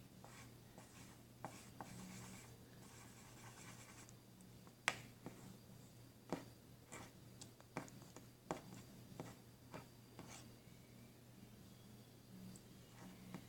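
Faint close-up handling sounds: irregular sharp clicks and soft scratching, about a dozen clicks in all, over a low steady hum.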